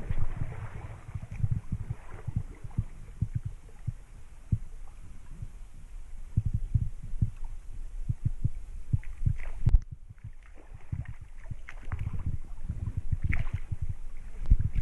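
Irregular, muffled low thuds with water sloshing, as someone wades through a shallow creek, and a sharp knock about ten seconds in.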